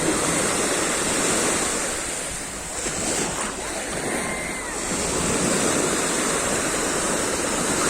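Mediterranean Sea surf washing on the shore, the noise of the waves swelling and ebbing in slow surges.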